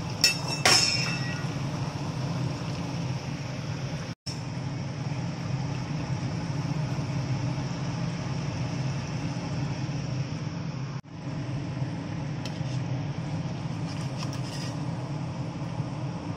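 Semolina dough balls deep-frying in hot oil in a steel kadai: a steady sizzle of bubbling oil over a low hum, with a single metal clink about half a second in. The sound breaks off briefly twice.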